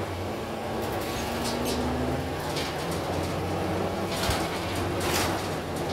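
City transit bus heard from inside the cabin while driving: a steady engine drone and road noise, the engine note rising slightly early on, with a few short rattles or hisses about halfway through and near the end.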